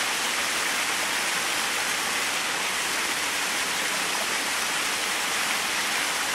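Erawan Waterfall's cascades rushing steadily, a dense even roar of falling water.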